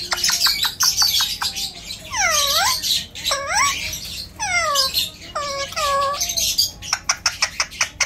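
Alexandrine parakeet calling: first a quick run of clicks, then several swooping whistled calls that dip down and rise back up in pitch, and near the end another fast burst of clicking chatter.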